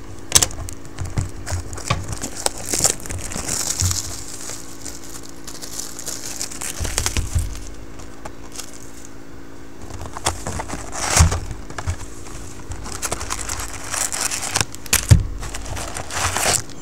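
Plastic shrink wrap crinkling and crackling as it is torn off a cardboard box of trading cards, then the cardboard lid being opened, with irregular rustles and a few sharp snaps.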